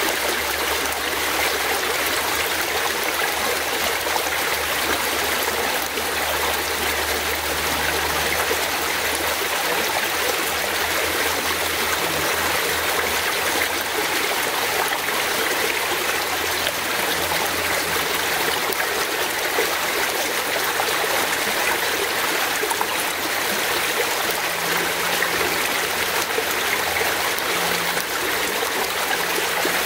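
Fast-flowing forest stream running steadily, an even rush of water with no breaks, and a faint low hum beneath it at times.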